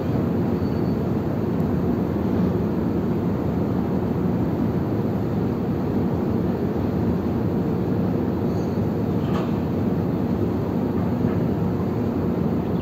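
Steady low rumble of the ferry Chikushi's engines together with the wash of its churning wake, heard from the open deck as the ship gets under way.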